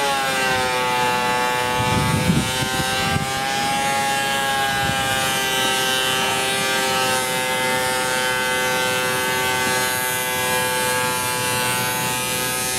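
A power machine in a workshop running with a steady, loud motor whine full of overtones; its pitch sags slightly in the first second, then holds level.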